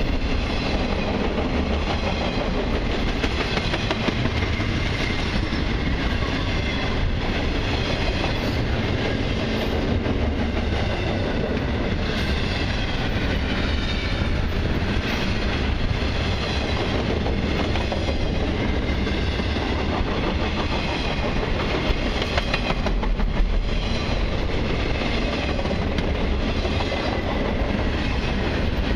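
Double-stack intermodal freight cars of a long train rolling past on the track, with steady wheel-on-rail noise that keeps on without a break.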